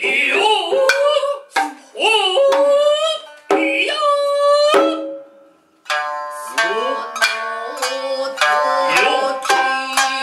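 Japanese traditional nagauta ensemble: a transverse bamboo flute plays held, wavering and sliding notes over sharp drum strokes for about five seconds, then after a short break several shamisen come in with quick plucked notes and drums.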